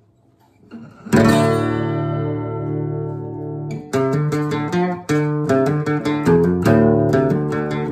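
Outro music on strummed acoustic guitar: a chord struck about a second in and left to ring, then a steady strummed rhythm from about four seconds in.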